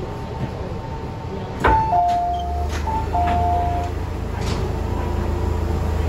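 MTR M-train saloon doors opening at a station stop. A click, then a high-low two-note door chime sounds twice while the sliding doors open with a few clunks. A steady low hum runs underneath.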